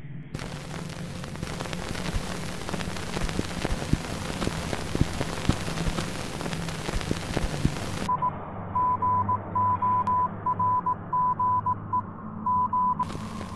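Crackling radio-style static with a low hum for about eight seconds. The static then cuts out, and a single high tone beeps in short and long pulses, like Morse code, over the hum.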